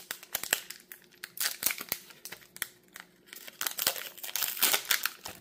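Foil wrapper of a Magic: The Gathering collector booster pack crinkling and tearing as it is opened by hand, in irregular crackles with short quieter gaps.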